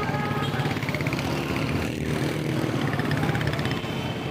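Road traffic: vehicle engines running steadily, with a horn toot that ends just after the start.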